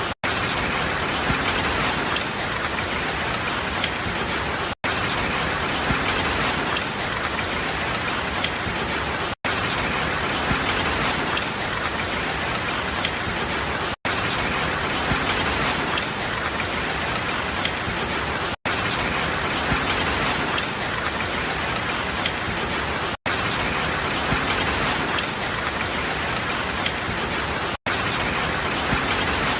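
Steady heavy rain falling, a dense even hiss of drops, cut by a brief gap of silence about every four and a half seconds, as in a short recording played on a loop.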